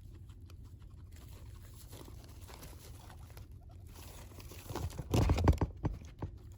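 Guinea pigs scuffling and rustling in their cage bedding, with a short flurry of quick scratchy sounds about five seconds in, over a faint low hum.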